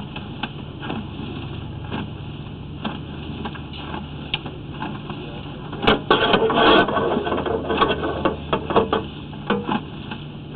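A steady low machine hum with irregular mechanical clicking and clattering, heaviest from about six to nine and a half seconds in.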